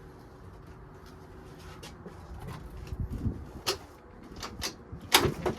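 Handling knocks and clicks from working at a moped's stuck parts: a few dull knocks, then a run of sharp clicks and clatters, the loudest about five seconds in.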